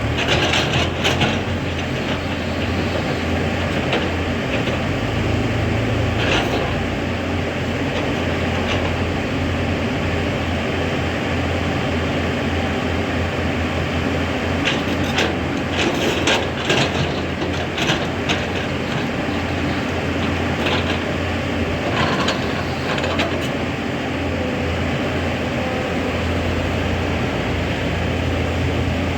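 Heavy excavator's diesel engine running steadily, with scattered metallic clanks and knocks, several of them close together in the middle.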